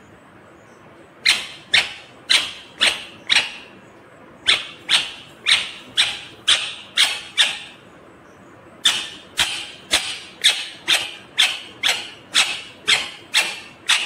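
Rose-ringed parakeet calling: short, sharp, loud calls about two a second, in three runs separated by short pauses.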